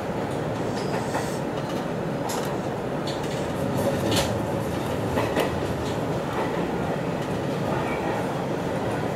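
Hanshin 1000 series electric train running along the track, heard from inside the driver's cab: a steady rolling rumble with a few sharp clicks from the wheels on the rails.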